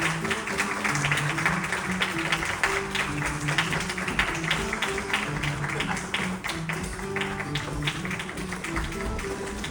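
Music with plucked guitar over a moving bass line, played steadily through the theatre's sound system.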